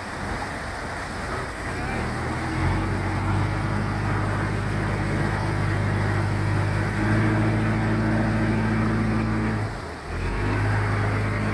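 A straw-laden river cargo boat's engine runs hard under load, pushing against the strong current through a sluice gate. It revs up a couple of seconds in and works harder around seven seconds. It drops briefly near the end, then picks up again, over rushing water.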